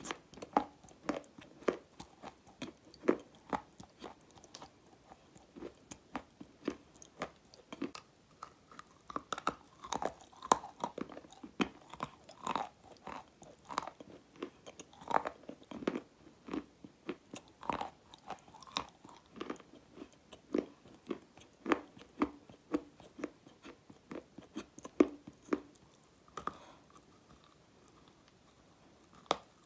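Chewing and crunching on a lump of grey clay, with irregular sharp crunches several times a second. It goes quieter shortly before the end.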